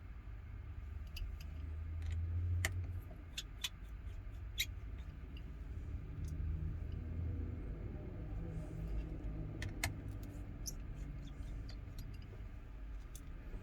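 Scattered small sharp clicks of tiny phone screws and a precision screwdriver being picked up and set down during screw removal, over a low, uneven background rumble.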